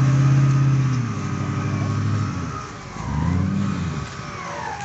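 Side-by-side off-road buggy's engine pulling hard in a deep muddy rut. It drops back after about a second, revs up and down briefly around three seconds in, then settles into a steady run again.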